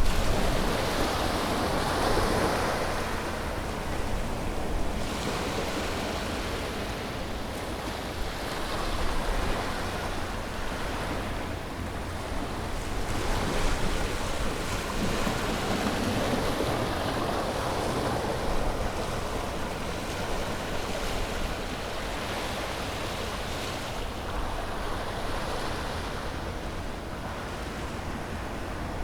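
Ocean waves breaking and washing on a beach, surging and receding every few seconds over a steady low rumble of surf.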